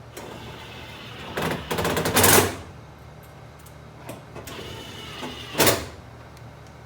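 Screws being driven back into the dryer's sheet-metal panels with a power driver: a run of rapid clicking about a second and a half in, then a short second burst near the end.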